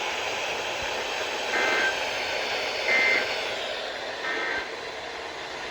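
NOAA Weather Radio SAME digital data bursts: three short two-tone warbling bursts about a second apart, the end-of-message code that closes the watch broadcast. Steady radio hiss runs under them.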